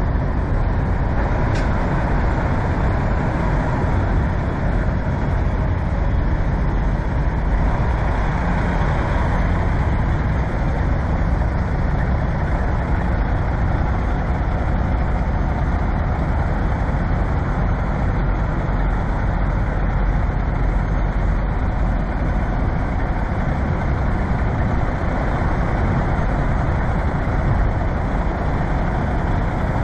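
Diesel engine of a long-hood Peterbilt semi truck with twin stacks running steadily at low speed as the truck pulls a loaded flatbed trailer slowly across a lot.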